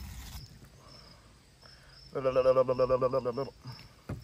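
Catfish skin being torn off a fillet by hand, a rough ripping in the first half-second. About two seconds in comes a drawn-out, pulsing vocal sound from a man, lasting about a second and a half.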